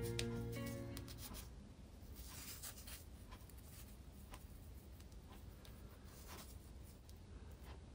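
Soft milk bread roll being pulled apart by hand: faint scratchy tearing and small crackles of the fluffy crumb. Gentle guitar music fades out in the first second or so.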